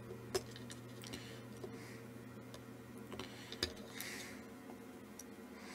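Small metallic ticks and clicks of a soldering iron tip and hand tool against a circuit board during desoldering, with two sharper taps, one near the start and one past halfway. Soft breaths and a low steady hum that fades out a little past halfway sit underneath.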